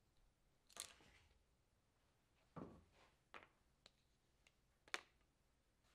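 Near silence broken by a few faint clicks and taps of small objects handled on a wooden tabletop, about five in all, the sharpest near the end.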